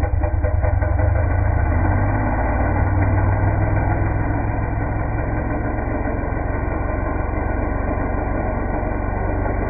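Gas-powered chainsaw engine running steadily at high revs, the saw held under throttle during a cut test into protective chaps.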